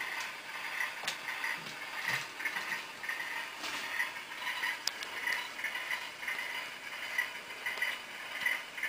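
Model train running on the layout, giving a steady mechanical clicking about twice a second over a faint whir.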